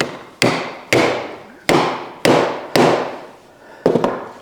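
About seven sharp hammer blows on the garbage disposal's metal housing, at intervals of about half a second, each one ringing briefly before fading. The parts are being tapped into line.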